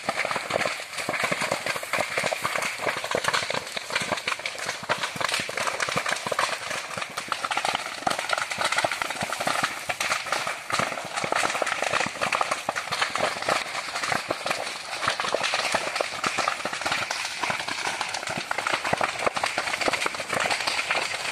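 Grass and brush fire burning, with dense, continuous crackling and snapping of burning vegetation.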